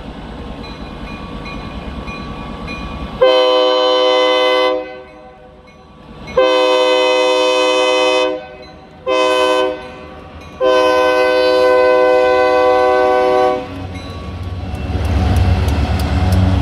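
Escanaba & Lake Superior freight train's SD40 locomotive air horn blowing the grade-crossing signal: two long blasts, a short one, then a long one, each a chord of several notes. After the horn the locomotive's diesel rumble grows louder as it passes, and regular wheel clicks start near the end.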